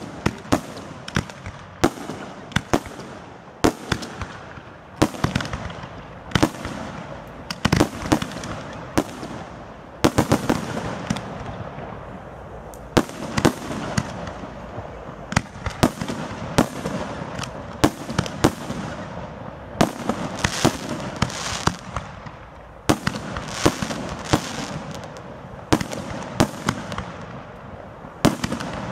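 Fireworks display: aerial shells bursting in quick succession, sharp bangs about one or two a second over a continuous crackle and hiss.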